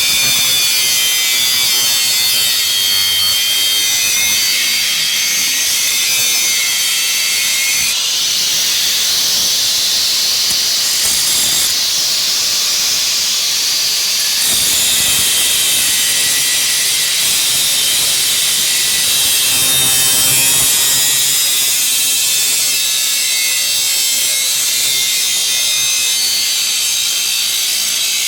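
Small angle grinder with a cut-off wheel cutting through a steel backhoe bucket shank, a continuous high, hissing whine whose pitch shifts as the wheel is loaded into the metal.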